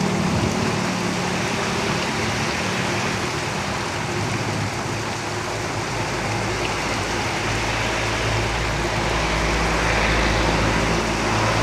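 Steady rain drumming on a tin roof, with the low rumble of road vehicles passing: one engine fades away at the start, and another rumble builds from about halfway through.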